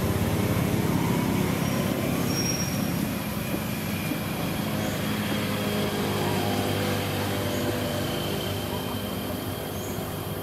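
A motor engine running steadily with a low hum, slowly growing quieter toward the end.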